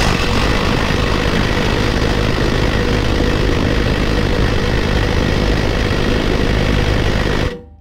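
Cordless impact driver hammering on a rusted exhaust bolt under a pickup truck, trying to break it loose. It runs steadily for about seven and a half seconds, then stops suddenly.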